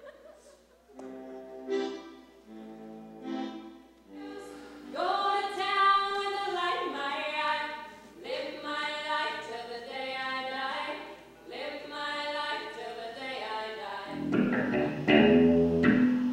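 A group of voices singing in phrases, several parts at once. About fourteen seconds in, louder music with a lower range takes over.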